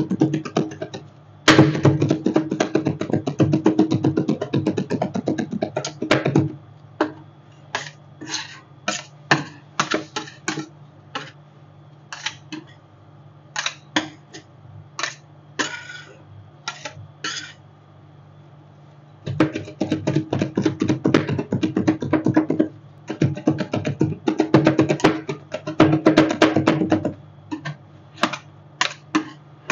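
Steel spatulas chopping and tapping rapidly on a rolled-ice-cream cold plate, in dense bursts at the start and again past the middle, with scattered taps between. A steady low hum runs underneath.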